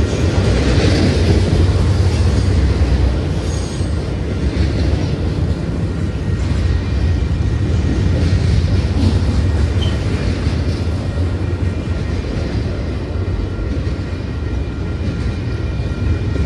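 Double-stack intermodal freight train of container-laden well cars rolling past at close range. It gives a steady, heavy low rumble of wheels on rail, loudest in the first few seconds.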